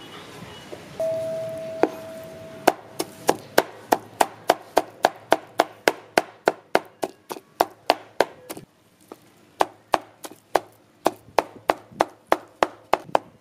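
A short metallic ring about a second in, then a cleaver chopping raw shrimp on a wooden cutting board in steady knocks about three a second, with a brief pause about nine seconds in.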